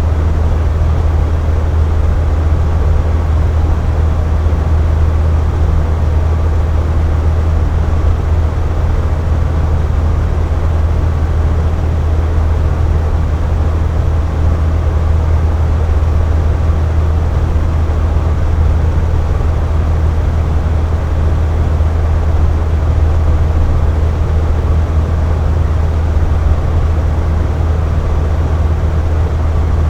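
Air conditioner running steadily: a deep, even hum with a constant airy rush over it.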